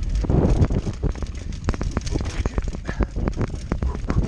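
Mountain bike rolling down a rocky trail of loose slate, its tyres clattering over the stone plates with many quick, irregular clinks and knocks over a steady low rumble.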